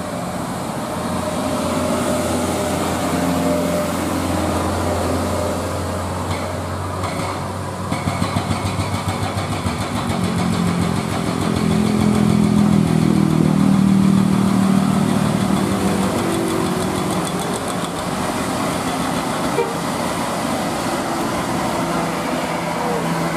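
Heavy traffic climbing a steep grade: diesel engines of a coach and trucks labouring uphill, with motorcycles among them. The engine noise swells to its loudest about halfway through.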